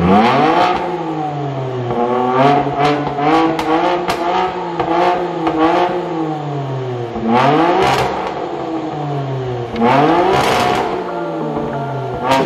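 BMW M4 G82's twin-turbo 3.0-litre inline-six on a full titanium cat-back, valved exhaust, running at idle and revved again and again. There is a string of short blips in the first half, then two longer, harder revs, one about two-thirds in and one near the end.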